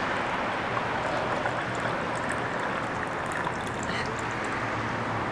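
Green tea poured from a cast-iron teapot into a ceramic cup: a steady trickling stream, over a constant background noise.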